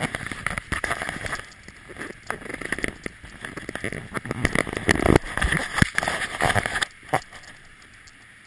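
Footsteps crunching and rustling through dry fallen leaves and brush, fast and irregular, stopping about seven seconds in.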